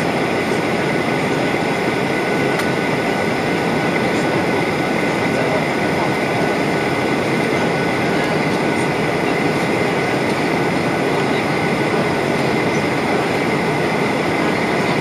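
Steady cabin noise of a Boeing 737-800 airliner at cruise altitude: an unbroken rush of jet engine and airflow noise, with faint steady whines on top.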